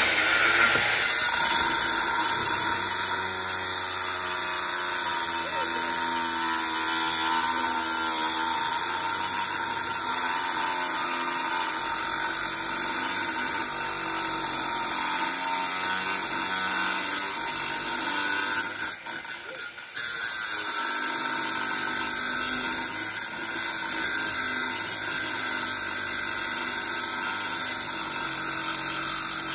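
Angle grinder spinning up and cutting into the metal shell of a small compressor, pressed harder to cut deeper: a loud, steady high whine as the wheel bites the steel. The cut eases off briefly about two-thirds of the way through, then carries on.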